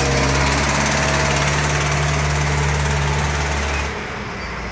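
Diesel engine of a self-loading concrete mixer running steadily as the machine drives off, after a repair of its hydraulic pump. About four seconds in the sound drops a little and turns duller.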